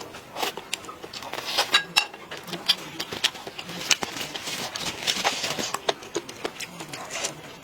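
Close-up eating sounds: chewing and lip smacking, heard as many irregular sharp clicks.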